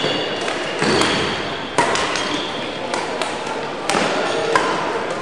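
Badminton rackets striking a shuttlecock: a few sharp hits, irregularly spaced, with short high squeaks of court shoes on the hall floor, over the steady noise of a busy sports hall.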